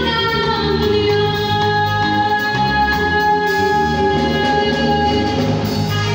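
Live band music played through a PA: bass guitar and drum kit under a woman's singing, with long held notes over a steady beat.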